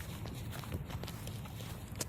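Faint footsteps on the ground, a few soft scattered steps over a low steady rumble.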